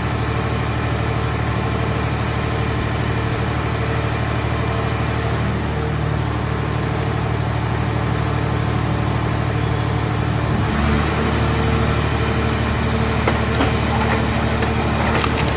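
Scrap car baler's power unit running with a steady low hum and a constant high whine. A little over two-thirds through, the hum changes note, as under a change of load, and a few sharp knocks follow near the end.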